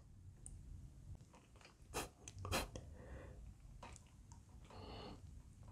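Faint handling sounds of a metal nut being threaded by hand onto a chrome T-valve fitting: two small clicks about two seconds in, then soft scraping and rustling.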